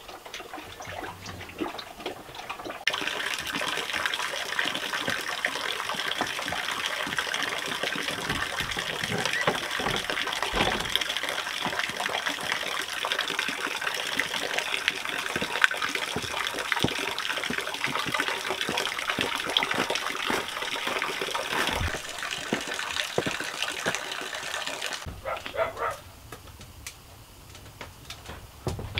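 Steady rush of running water that starts abruptly a few seconds in and cuts off sharply a few seconds before the end.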